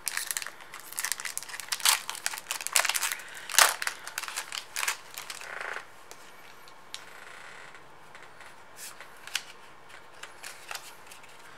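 Foil wrapper of a Pokémon trading card booster pack crinkling and crackling as it is opened, in quick sharp crackles for about six seconds, the loudest about three and a half seconds in. After that only a few faint ticks.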